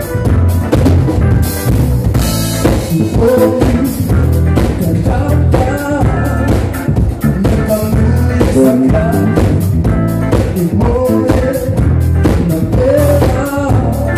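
Live band playing: an electric bass guitar and a drum kit lock into a steady groove, with the bass strong underneath the drum hits and a higher melodic line moving over the top.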